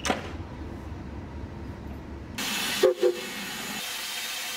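Steam hissing steadily from an LMS Black 5 steam locomotive, starting suddenly about halfway through, with a brief double toot of the locomotive's whistle just after it starts. A sharp knock sounds at the very start.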